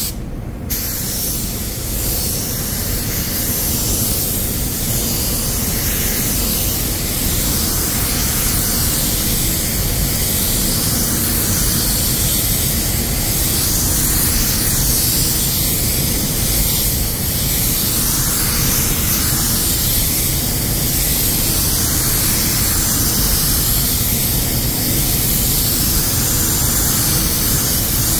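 Iwata W-300 compressed-air paint spray gun with a 1.3 mm nozzle hissing steadily as it sprays a second coat of heavy UHS clear coat.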